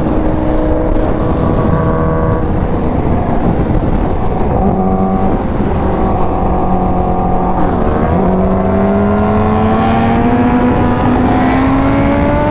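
Supercharged inline-four of a 2016 Kawasaki Ninja H2 with a Competition Werkes exhaust running at freeway speed over wind noise. Its pitch holds fairly steady, then about eight seconds in it dips and climbs steadily as the bike accelerates.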